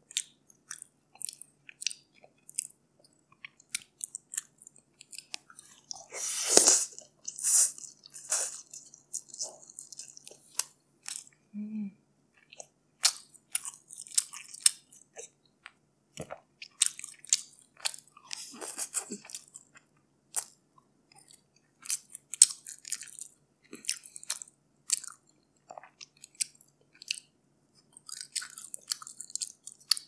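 Close-up eating sounds: a person chewing mouthfuls of steamed rice and grilled stingray, with many short clicks and crackles and a few louder bursts about six to eight seconds in.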